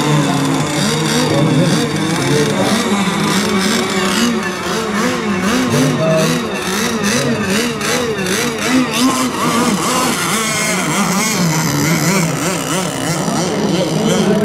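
Radio-controlled racing boats running at speed, their motors' pitch rising and falling again and again as they throttle through the course.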